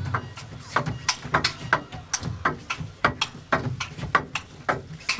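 Table tennis rally: the celluloid ball clicking sharply off the rackets and bouncing on the table in quick alternation, several hits a second.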